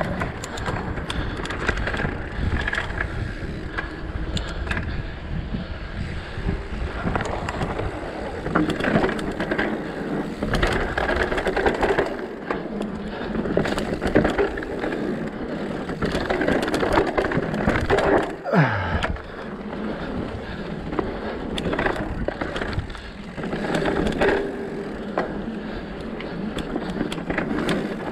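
Mountain bike riding down a dirt and rock trail: the tyres crunch over packed dirt and loose stones, and the bike rattles and clatters with many small knocks over the rough ground. A short falling tone sounds about two-thirds of the way through.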